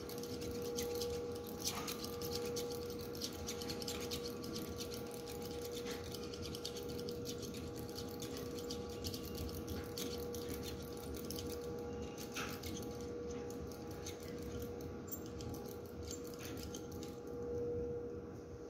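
Plastic inoculating loop stirring and scraping inside a glass test tube of liquid, a run of faint ticks and rubs as bacterial colonies are emulsified into a suspension. A steady mid-pitched hum runs underneath.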